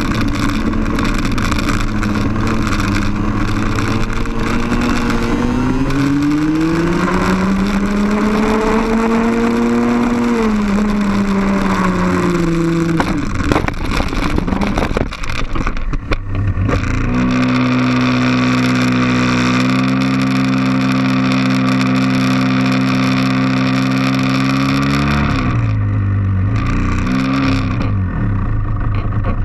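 A 125cc two-stroke TaG racing-kart engine, heard onboard with wind noise. It climbs in pitch under acceleration, then falls off as the kart crashes in turn 1, with a burst of clattering and scraping impacts about 13 to 16 seconds in. After the crash the engine keeps running at one steady pitch while the kart lies overturned, then falters near the end.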